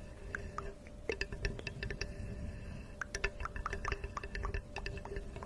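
Water dripping and plinking in quick, irregular small drops over a faint steady hum.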